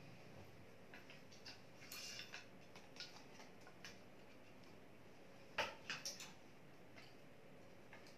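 Near silence of an empty room, broken by faint, irregularly spaced clicks and taps, with a quick cluster of sharper clicks a little past the middle.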